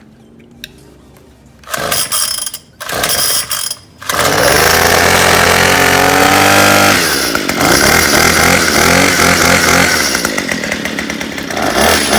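Craftsman 210 straight-shaft two-stroke string trimmer being pull-started on choke. Two short bursts from the starter pulls come about two and three seconds in. The engine catches at about four seconds and runs fast, its pitch dropping over the next few seconds, then keeps running steadily.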